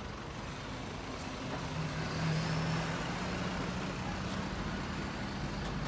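Truck-mounted aerial work platform running, its engine and hydraulics giving a steady hum as the boom moves the basket; the hum grows stronger about a second and a half in.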